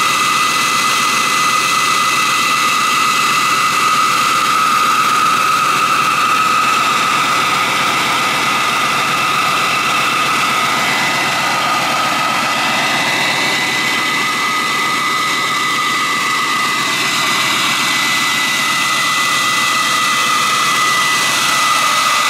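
Steady high whine of the air turbine on a model LUF 120 fire-fighting tank, a fan rated at 24,000 rpm, blowing water mist from its cannon with an even hiss. The whine weakens about halfway through and comes back stronger near the end.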